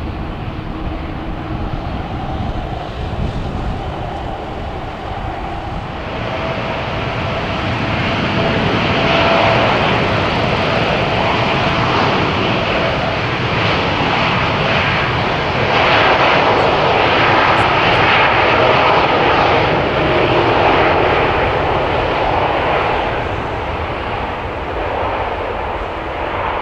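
Jet airliner's engines, a broad roar with a faint steady whine that swells about six seconds in, stays loud through the middle and eases off near the end.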